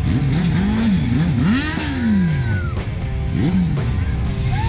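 Rock music with electric guitar, over engines of parade motorcycles and ATVs revving up and down several times.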